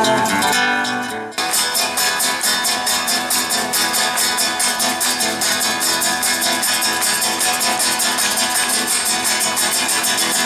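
Instrumental music: held chords die away just over a second in, then give way to a fast, even run of short notes, about four a second.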